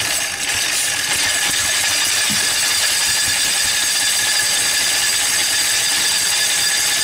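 Belt-driven paint mill and the stationary engine driving it running steadily: a continuous mechanical whir with a high whine over it, on a trial run to see whether the flat belt stays on the pulley.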